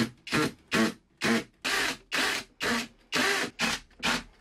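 Cordless drill pulsed on and off in about ten short bursts, two to three a second. The motor spins up and winds down each time as it drills through shelf bracket holes into a breeze block wall.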